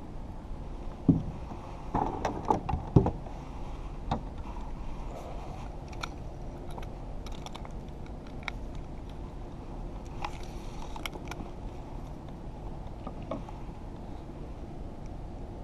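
A spinning reel and fishing rod being handled in a plastic kayak: a cluster of sharp knocks and clicks in the first few seconds, then scattered lighter clicks, over a steady low rumble.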